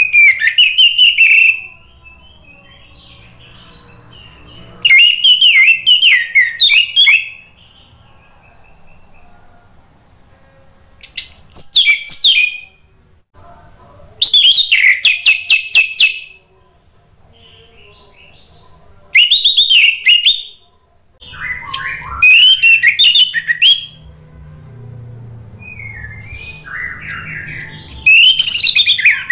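Orange-headed thrush singing loud, quick warbling phrases, about seven of them, each a second or two long, with short pauses between.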